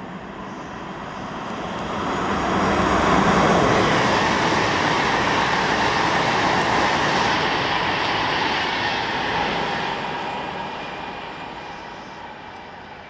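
Freight train passing at speed: the noise of its wheels on the rails builds over about three seconds, holds steady while the train goes by, then fades away.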